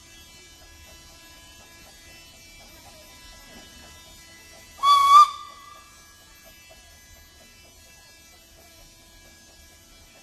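One short toot of the 1917 Kerr Stuart steam locomotive Stanhope's whistle, a single steady pitch lasting under a second, about five seconds in.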